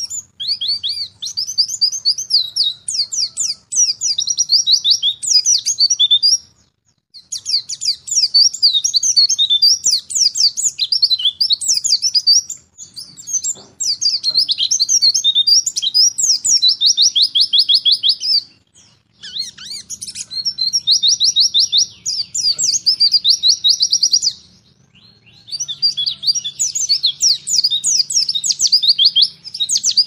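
Small songbirds chirping and trilling together in a dense, busy chorus of rapid high-pitched notes, broken by brief pauses about every six seconds.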